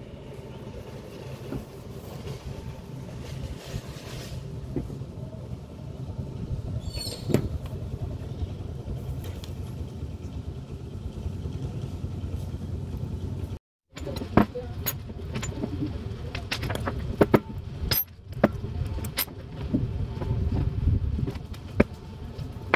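Metal clinks and knocks of starter motor parts being handled, several sharp ones in the second half, over a steady low background rumble.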